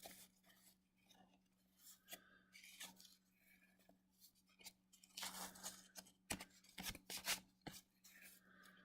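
Faint rustling and clicking of cardboard trading cards being handled and slid against one another, with a cluster of sharper snaps and scrapes about five to eight seconds in.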